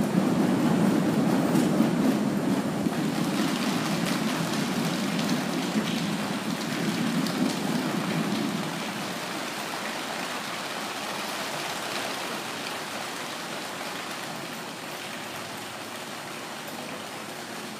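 Audience applauding, heavy at first and thinning out from about halfway, then slowly fading.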